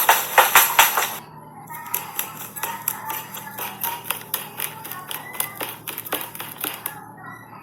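Running footsteps, quick and regular at about four to five footfalls a second. They are loud and sharp for about the first second, then go on more quietly at the same kind of pace.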